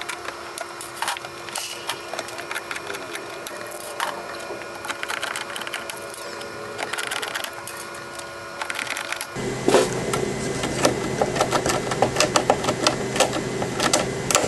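Hand pop rivet gun being squeezed over and over to set rivets in a plastic golf cart cowl: a run of sharp metallic clicks and snaps. About nine seconds in, the sound changes abruptly and the clicking becomes louder and denser.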